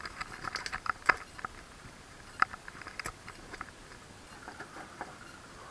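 Meter probe tips clicking and tapping irregularly on a circuit board's pins and traces while continuity is checked, several small sharp ticks with the loudest about two and a half seconds in.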